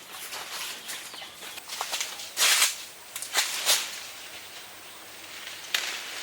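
Brief bursts of rustling and scuffing handling noise, the loudest about two and a half seconds in, with a few more after it and one near the end.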